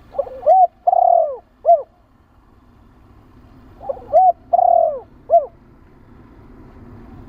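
Spotted dove cooing: two phrases of four notes each, a short note, an arched note, a longer falling note and a final arched note, about three and a half seconds apart.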